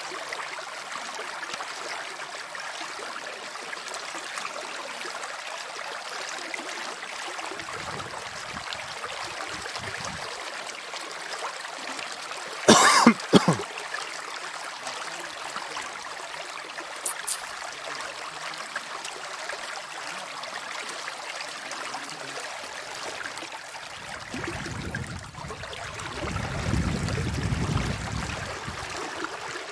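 Steady rushing of a shallow river running over a riffle. A brief loud noise cuts in about halfway through, and a low rumble rises near the end.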